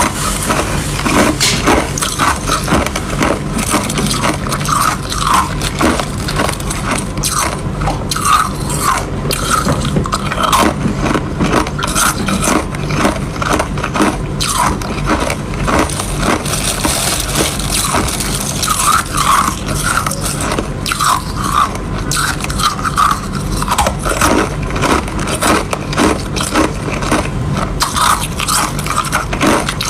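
Ice being bitten and chewed close to the microphone: a continuous run of rapid, sharp crunches and cracks with no pause.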